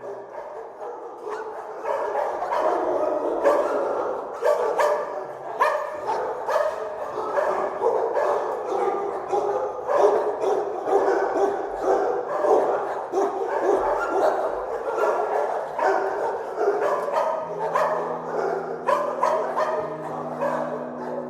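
Many dogs barking at once in a continuous, overlapping chorus of kennel dogs.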